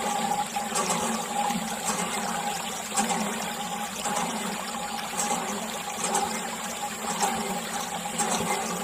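A thin stream of water pours steadily from a small clear plastic tube into a shallow puddle on soil, with a continuous splashing trickle.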